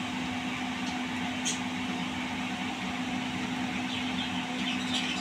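Gulab jamun balls deep-frying in oil in a steel wok on a low flame: a steady sizzle over a constant low hum, with a light tap or two of the spatula against the pan.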